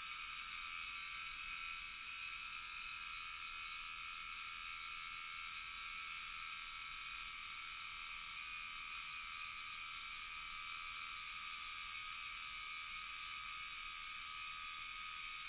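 Evening animal chorus played back in slow motion: a steady, dense drone of many overlapping calls that never breaks.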